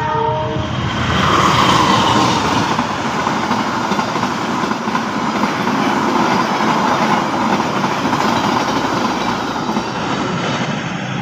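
Passenger train of stainless-steel coaches passing close by at speed: a steady rush with the clatter of wheels over rail joints. A locomotive horn sounds at the start and cuts off about half a second in.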